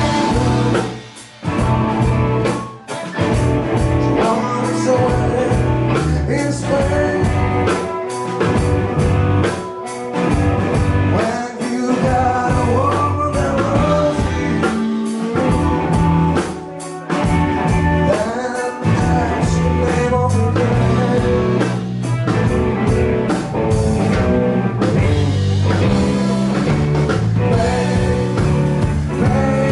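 A live blues-rock band playing: electric guitars, bass guitar and drum kit, with a male voice singing. The music drops back briefly a couple of times near the start and again about halfway through.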